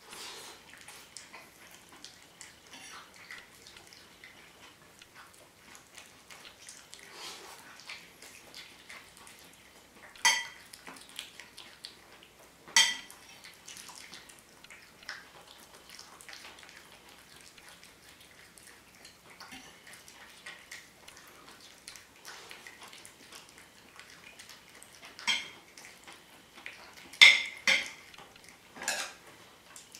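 Mealtime table sounds: a fork clinking and scraping on a plate while a cat eats from a stainless steel bowl. There are soft small clicks throughout and several sharper, ringing metallic clinks, twice around the middle and three or four times near the end.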